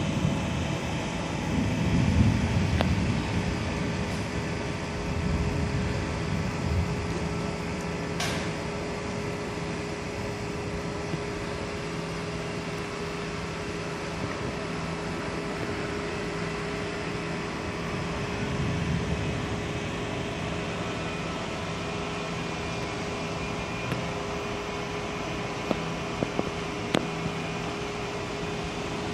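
Small workboat's engine running steadily as it tows a barge loaded with silt: a constant hum with a steady mid-pitched tone and a low rumble that swells now and then. A few short ticks near the end.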